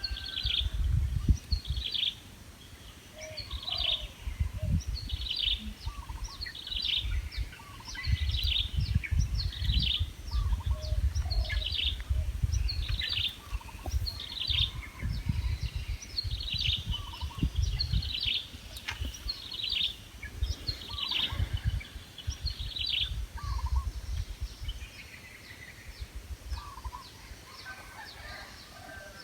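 A bird calling over and over, a short high note roughly once a second, with fainter lower notes among them. The calls stop about three quarters of the way through. A gusty low rumble comes and goes underneath.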